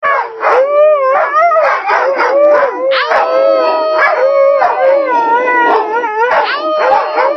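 A husky and a wolf hybrid howling together, two long, wavering howls overlapping at different pitches, with short yipping breaks between.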